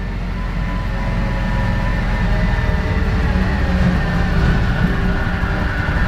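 Quad's engine running steadily as it drives along a rough track, heard from on board as a low rumble.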